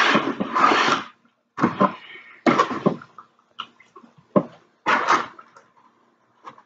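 A plastic fork scraping in a styrofoam takeout container and the container creaking as it is handled, in several short noisy bursts, the longest and loudest right at the start, with small clicks between.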